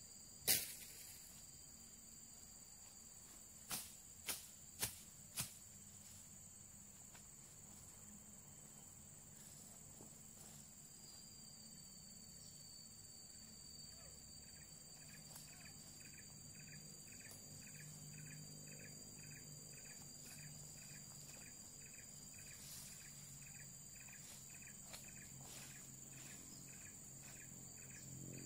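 Forest insects keep up a steady, faint high-pitched drone. About half a second in there is one sharp knock, then four quick knocks about half a second apart. In the second half a repeated chirp comes in at about two a second.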